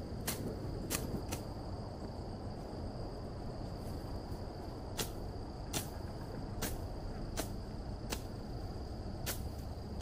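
Steady wind rumble with a continuous high insect trill, cut by sharp clicks that come irregularly, about one every half second to one second.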